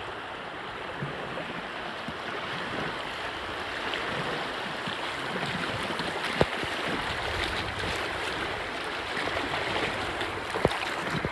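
Fast river water rushing and churning around a kayak running a small rapid, a steady hiss. Two short sharp knocks, one a little past the middle and one near the end.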